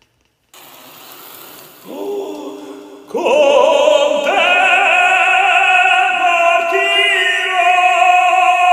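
Operatic singing: a voice comes in about two seconds in and swells a second later into a loud, long held high note with vibrato, moving to another pitch near the end.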